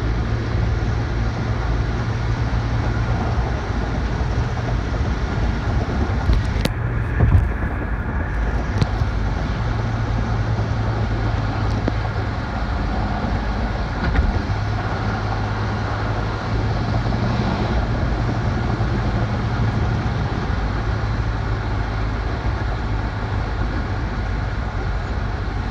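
Steady road noise of a moving vehicle travelling at highway speed, heard from inside, with a low rumble and the hiss of passing traffic. A few brief knocks come about seven seconds in and again near fourteen seconds.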